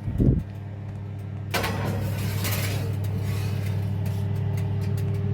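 A kitchen appliance door shuts with a thump, then a steady low electrical hum starts and runs, swelling about a second and a half in with a hiss on top.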